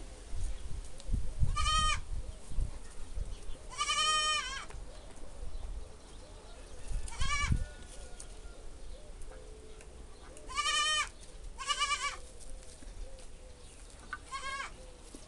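Goats bleating: six short, high, wavering bleats spaced a couple of seconds apart, one a little longer than the rest. A low rumble sounds in the first couple of seconds.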